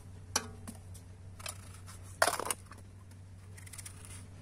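Knives cutting apples and slices dropping into an aluminium pot: sparse sharp clicks and knocks, one with a brief metallic ring, and the loudest about two seconds in, over a steady low hum.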